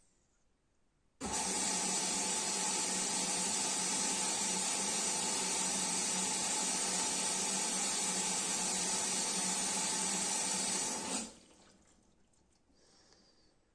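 Water rushing into a Beko washing machine as it fills at the start of a wash. The flow starts abruptly about a second in, runs steadily for about ten seconds, then cuts off.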